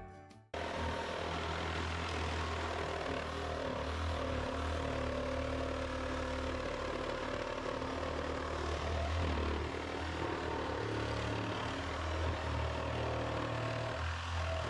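Steady machine drone of a running motor with a strong low hum, starting about half a second in.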